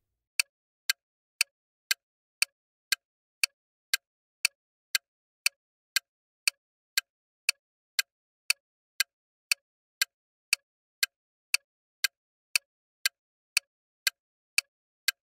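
Clock ticking as a countdown-timer sound effect: short, sharp ticks, evenly spaced at about two per second.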